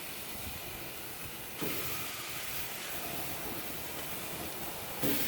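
Ribeye steaks sizzling on hot GrillGrates over an infrared grill burner, a steady hiss. The sizzle jumps louder about a second and a half in as another steak goes down on the grate, and a short sharp sound comes near the end.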